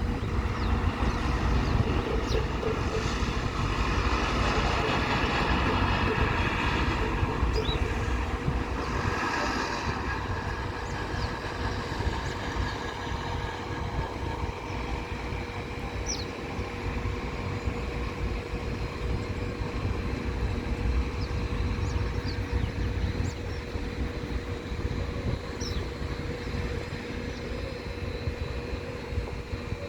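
Jet engine noise from a landing Boeing 737 MAX 8's CFM LEAP-1B turbofans: a steady rumble with a steady whine through it. It is loudest over roughly the first ten seconds, then eases a little.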